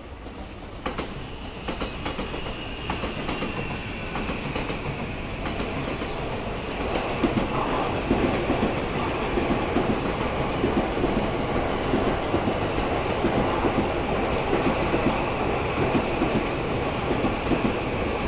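E217 series train cars rolling past, hauled unpowered behind a locomotive, their wheels clicking rhythmically over rail joints. The clatter grows louder over the first several seconds and then holds steady, with a faint high whine above it.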